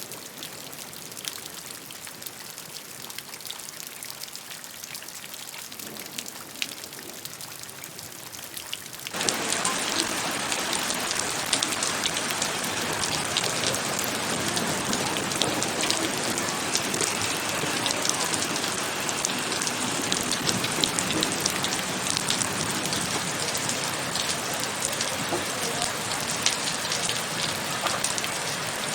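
Rain falling, with scattered drops tapping at first. About nine seconds in it cuts suddenly to a louder, denser downpour that runs on steadily.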